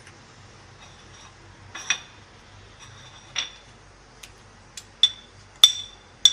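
A spoon clinking against a bowl while vinegar is added to and mixed into chicken pieces. There are several sharp clinks at irregular intervals, each with a short ring, and the loudest come near the end.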